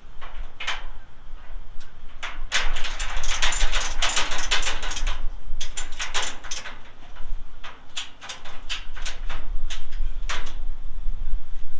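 Car-hauler wheel strap being pulled through and cranked tight with its ratchet: a quick run of rasping clicks about two and a half seconds in, then single ratchet clicks and scrapes, over a steady low rumble.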